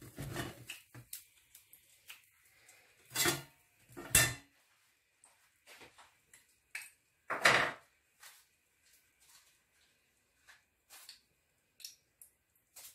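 Kitchen tongs and utensils clinking and knocking against a stainless steel steamer basket and pots. There are a few distinct knocks, the loudest about seven and a half seconds in, with faint scattered ticks between them.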